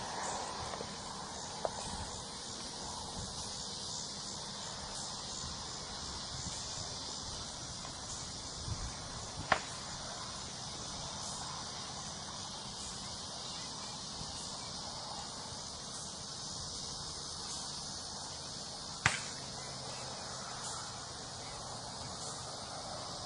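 A steady chorus of insects buzzing in a field. It is broken by two sharp cracks, one a little under halfway through and one about ten seconds later.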